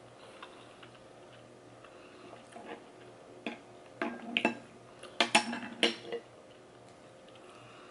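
Metal spoon and crab shells clinking and knocking against a ceramic bowl of seafood gumbo: a run of sharp clinks with a short ring, bunched mostly in the second half.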